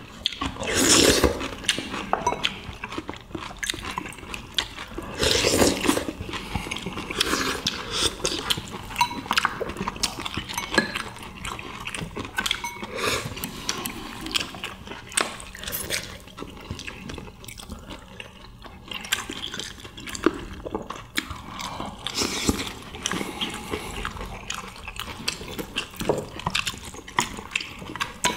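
Several people eating at a table: chewing and slurping soup, with many small clicks of chopsticks and spoons against dishes and bowls.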